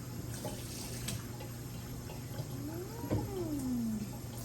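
A house cat's single drawn-out meow that rises and then falls in pitch, about two and a half seconds in, over a steady low hum.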